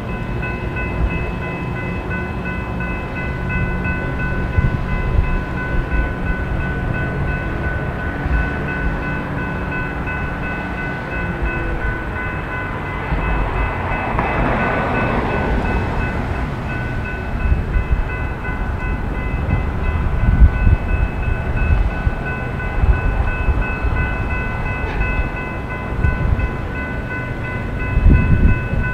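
Railroad grade-crossing warning bell ringing steadily with the gates down, over the low rumble of an approaching freight train that grows louder near the end.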